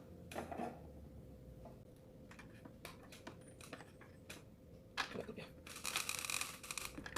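Faint plastic clicks and scraping as a motorcycle helmet's flat visor is worked into its spring-loaded ratchet side plate, with a louder stretch of rubbing near the end. The visor is new and goes in stiffly.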